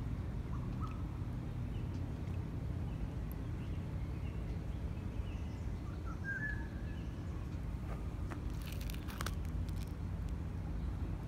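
Outdoor background: a steady low rumble, with faint short bird chirps now and then and a quick run of sharp clicks about nine seconds in.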